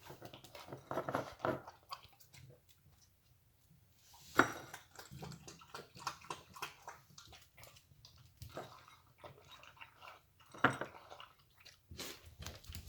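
Boston terrier chewing and crunching dry food, an irregular run of small crunches and clicks with two sharper knocks, one about four seconds in and one near eleven seconds.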